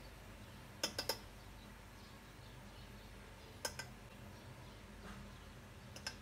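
A spoon clicking against a metal cooking pot as spoonfuls of ground spice are tipped in: three quick clicks about a second in, one more near four seconds, and another near the end, over a faint low hum.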